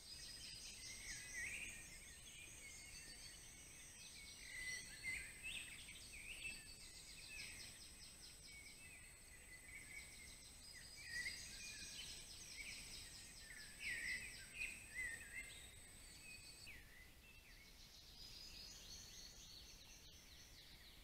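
Faint chorus of small songbirds, many overlapping chirps and trills, with a thin steady high-pitched whine that cuts off about three-quarters of the way through.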